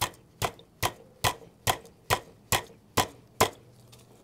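Nine sharp, evenly spaced taps, a little over two a second, knocking a press-fit part loose on a Honda CBR650R motorcycle. The part is not bolted on and is being tapped until it pops off.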